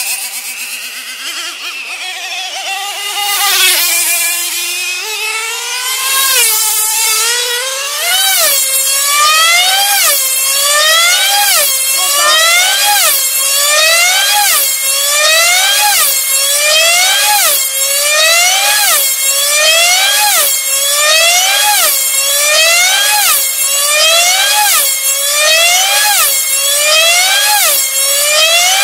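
F2A control-line speed model aircraft's 2.5 cc two-stroke engine running flat out at a very high pitch. Its note climbs over the first several seconds as the model accelerates. After that it rises and falls in pitch and loudness once every lap, about every 1.3 seconds, as the model circles the pilot at full speed.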